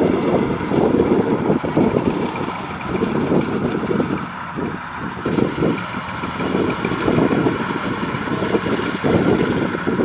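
Kubota DC-105X rice combine harvester running as it cuts standing rice: a steady drone of engine and threshing machinery that swells and eases a little.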